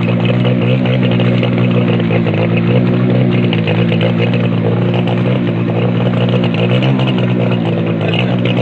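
A motor vehicle's engine running at a steady speed, its pitch holding even with no revving.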